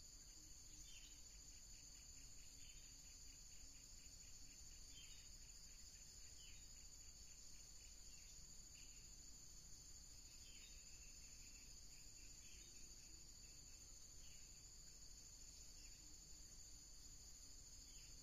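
Faint, steady, high-pitched insect drone with two continuous tones. Short chirping calls recur every couple of seconds over it.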